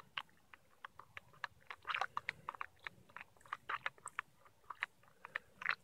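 An orange-and-blue fork clicking and scraping against the inside of a steel pot while stirring hot chocolate: many small irregular clicks, faint.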